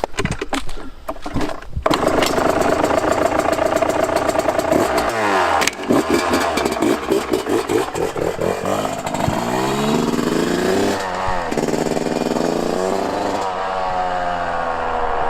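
Yamaha YZ125 single-cylinder two-stroke engine, fitted with a new stock header and silencer, cuts in about two seconds in and revs up and down repeatedly, its pitch rising and falling as it is ridden.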